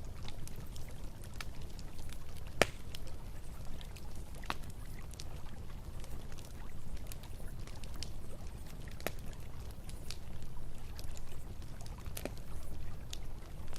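Campfire crackling, with irregular sharp pops and snaps from the burning wood, one much louder pop a few seconds in, over a steady low rumble.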